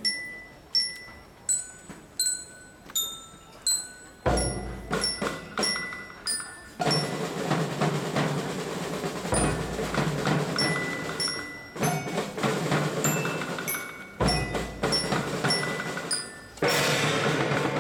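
Percussion band playing on a float. For the first four seconds there are only sharp, ringing metallic strikes at changing pitches. About four seconds in, a heavy bass-drum boom brings in rhythmic bass drum and a large gong whose ring lingers under the strikes, and there are two more heavy drum-and-gong entries near the end.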